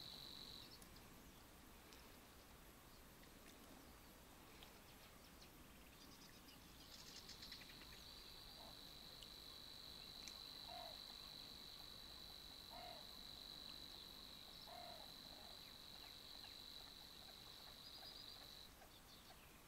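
A faint, continuous high-pitched reeling trill that stops less than a second in, starts again about seven seconds later and runs on for about eleven seconds. A few soft, short low calls come about two seconds apart in the middle.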